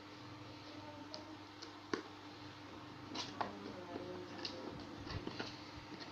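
Scattered clicks and light taps of objects being handled, the sharpest about two seconds in, over a faint steady hum.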